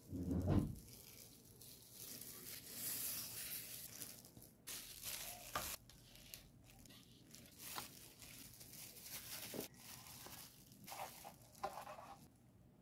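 Handling noises: a dull thump about half a second in, then irregular rustling and crinkling of a thin plastic food glove and scraping as a silicone spatula runs along the inside edge of a metal baking tin.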